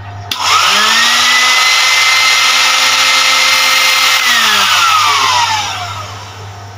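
Homemade vacuum cleaner built from a blender motor with two sheet-zinc fan impellers, switched on for a test run. A loud rushing whine starts suddenly, climbs in pitch within about a second and holds steady for about three seconds. After about four seconds it is switched off and winds down, falling in pitch as the fans coast to a stop.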